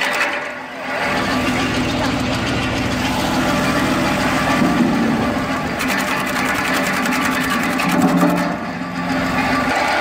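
A homemade log-cutting machine runs with a fast, steady mechanical clatter while a log is fed into its hopper and cut into firewood rounds. The level dips briefly at the start, then a heavier low hum joins in as it cuts.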